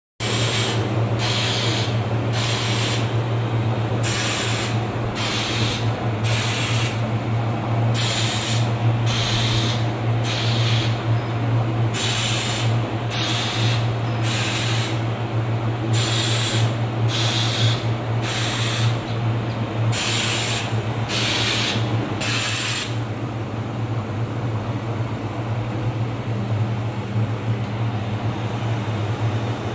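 A 4000 W gantry fiber laser welder welding the busbars of a prismatic-cell battery pack: a run of short hissing bursts, a little under one a second, that stops about 23 seconds in. Under it runs the machine's steady low hum.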